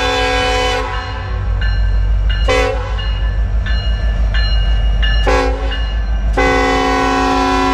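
Diesel locomotive's multi-chime air horn blowing. A held chord breaks off about a second in, fainter thinner tones sound in the gap, then come two short blasts about three seconds apart and a long blast starting near the end, over the steady low rumble of the train.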